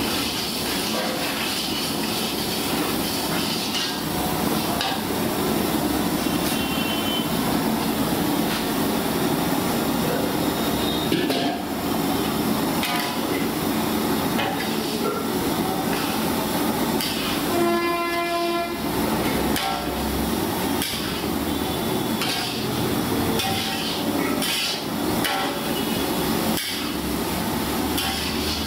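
Busy street-kitchen cooking noise: a steady roar with frequent metal clinks and knocks from the kadai and utensils, and a horn sounding for about a second a little past the middle.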